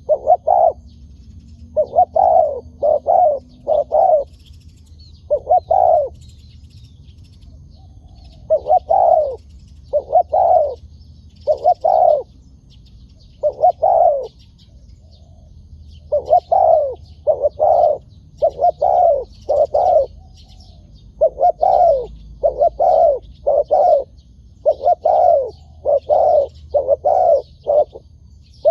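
Spotted doves cooing over and over, in phrases of one to four deep coos with short gaps between phrases, as a decoy dove calls to a wild one. Faint high chirps of small birds sound behind them.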